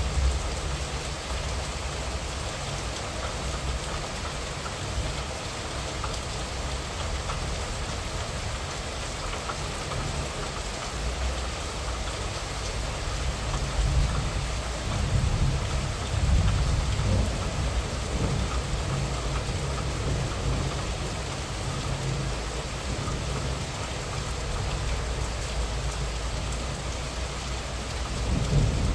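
Moderate rain falling steadily, recorded on a mobile phone. A low rumble swells about halfway through and again at the very end.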